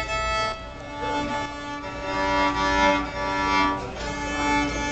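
Solo violin playing a few long held notes, bowed into a microphone as a sound-level check.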